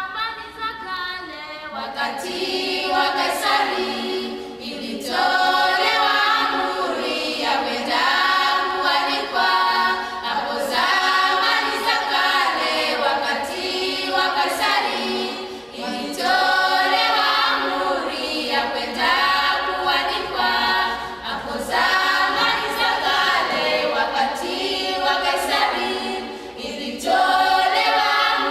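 A choir singing a cappella in sung phrases with short breaths between them, as a music soundtrack.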